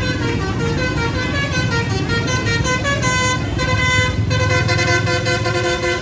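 Bus telolet basuri horn, the multi-trumpet musical horn of an Indonesian coach, playing a stepping melody of several tones at once over the bus's low engine rumble.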